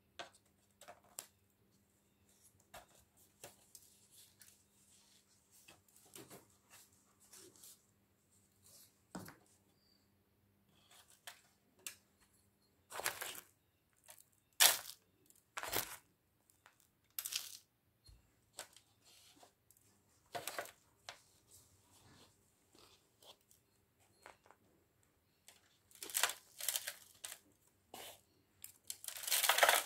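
Repotting noises: plastic plant pots, potting mix and an aluminium foil tray being handled, heard as a run of irregular crinkles, scrapes and light knocks. The sounds are loudest around the middle and near the end.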